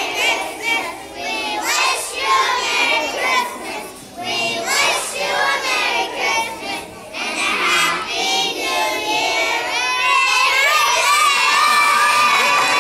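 A group of young children singing together. About ten seconds in they hold a final note and audience applause starts.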